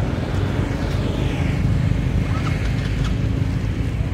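A steady low motor rumble with a faint hum, running evenly throughout.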